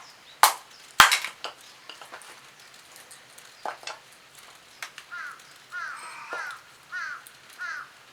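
Two sharp knocks of wood on wood or metal in quick succession, the loudest sounds, then a few lighter knocks. Near the end a bird calls five times in a quick series.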